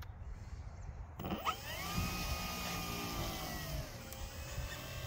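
RC Spitfire's motor and propeller spinning up as the throttle is opened: a quick rise in pitch about a second in, then a steady whine that eases down slightly near the end.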